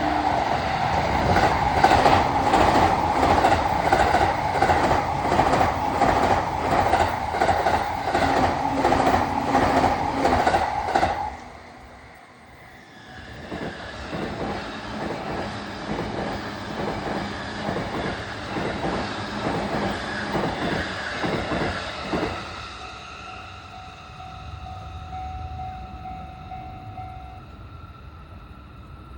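Electric passenger trains passing over a level crossing, one after another: a loud train with a rhythmic clickety-clack of wheels over rail joints that cuts off suddenly about 11 seconds in, then a second, quieter train clacking past that fades out about halfway through.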